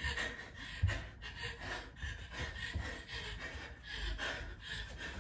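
A dancer breathing hard and panting, with dull thuds of bare feet landing on the floor, the loudest about a second in.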